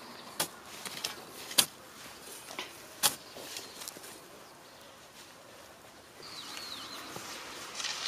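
Several sharp knocks in the first few seconds, then a bird calling with high, whistled notes from about six seconds in, one dipping in pitch and one held level.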